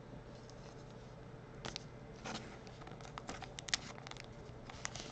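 Faint rustling and scattered light clicks of a trading card being handled and tilted between the fingers.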